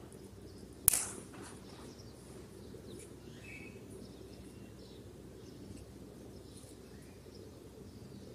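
Faint small birds chirping now and then over a steady low hum, with one sharp click about a second in.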